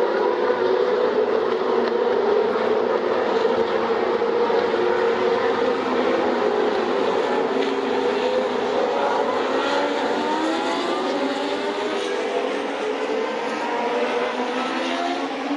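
Engines of several vintage Formula 1 cars running hard on track, their pitches overlapping, with a rising pitch from about eight seconds in as a car accelerates.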